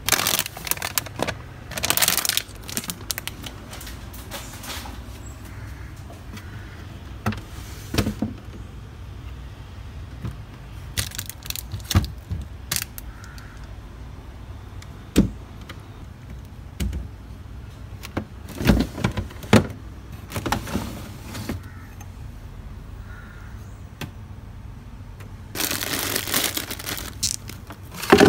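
Plastic produce bags crinkling and rustling as vegetables are handled and pulled from a refrigerator, with scattered clicks and knocks over a low steady hum. Near the end comes a longer rustle as cherry tomatoes are tipped from a plastic clamshell into a plastic bowl.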